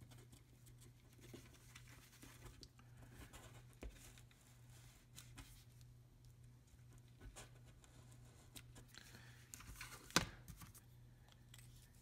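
Faint scratching and light ticking as a rosin flux pen's felt tip is rubbed along copper solder braid, over a low steady hum. A single sharper tap about ten seconds in.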